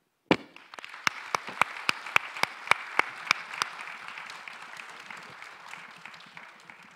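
Audience applause that starts suddenly, with one nearby pair of hands clapping loudly and evenly, about three to four times a second, over the first half. The applause then fades away toward the end.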